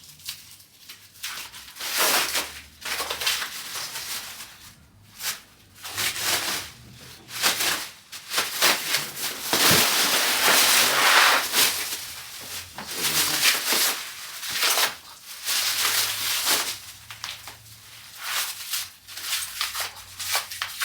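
Irregular bursts of scraping and crinkling noise, coming and going every second or so, from hands-on floor cleanup and handling of materials.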